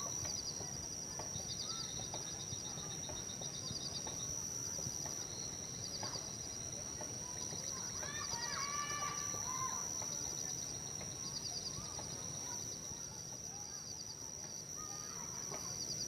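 Outdoor nature ambience: birds chirping in short repeated trills over a steady high-pitched whine, with a flurry of chirps about halfway through.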